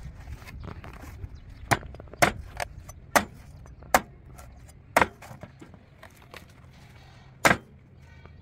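A large knife chopping into a young coconut: about eight sharp strikes at uneven intervals, over a steady low hum.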